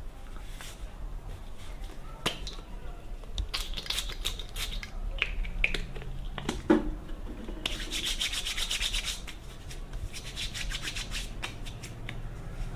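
Palms rubbing briskly together in quick strokes, mostly in the second half, with a few light clicks and knocks of a stainless steel bowl being handled on a glass tabletop before that.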